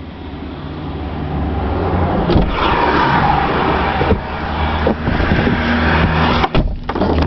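Car engine and road noise heard from inside the moving car's cabin, growing louder, with a rushing noise in the middle as oncoming traffic passes. A few sharp knocks come through, several close together near the end.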